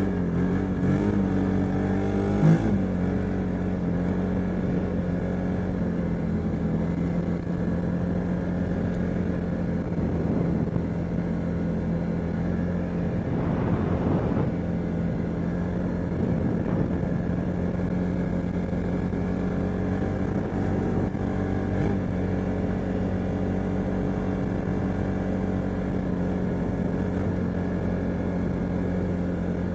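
CFmoto ATV engine running under way with a leaking exhaust. The engine note shifts in pitch in the first couple of seconds, with a sharp click about two and a half seconds in, then holds steady.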